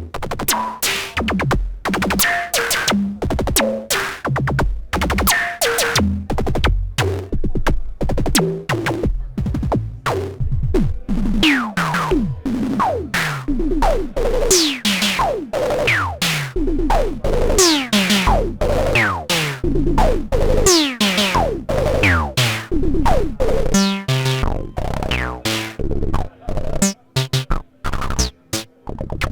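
Dreadbox Dysmetria playing a fast electronic drum-machine pattern of dense, rapid synthesized hits, many falling quickly in pitch. Toward the end the pattern thins into sparser hits with short gaps between them.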